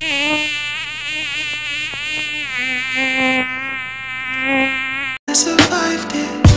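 A pack of dirt bike engines revving at the starting gate, a high buzzing whose pitch keeps rising and falling. About five seconds in it cuts off abruptly and music with a beat starts.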